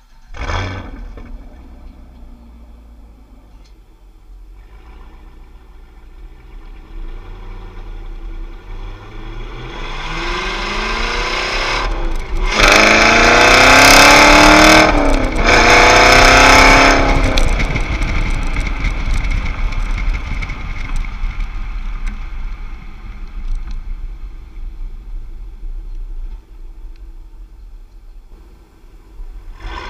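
Exhaust of a 2016 Camaro SS's 6.2-litre LT1 V8 through a Borla ATAK cat-back system, heard right at the tailpipes under hard acceleration. After a short blast about half a second in and a low rumble, the engine note climbs steadily. Then come two very loud rising pulls near the middle with a sharp drop in pitch between them as it shifts up, before the car eases off and the exhaust settles to a lower drone.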